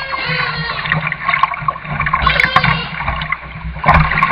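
Canoe paddle strokes in water, with water gurgling and swishing around the hull and blade. Two louder splashes come from strokes, about halfway through and near the end.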